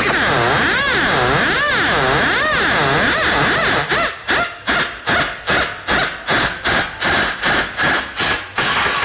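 Electronic siren-style effect played through a large DJ sound system: a wailing tone sweeping up and down about once a second. About four seconds in it is chopped into rapid on-off pulses, about two and a half a second.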